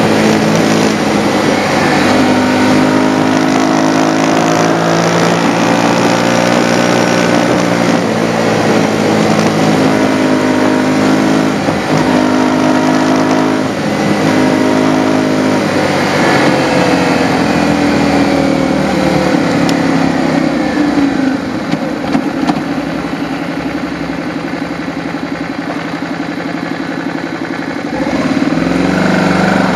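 Motorcycle engine running while riding, its note rising and falling as the revs change. It drops lower and quieter from about two-thirds of the way through, then picks up again near the end.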